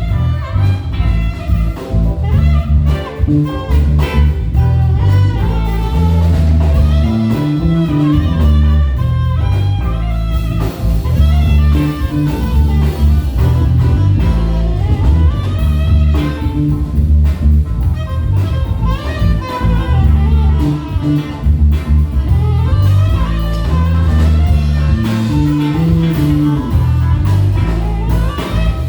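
Live band playing an instrumental blues-jazz groove: a lead guitar solos with bent, gliding notes over a steady bass line and drum kit.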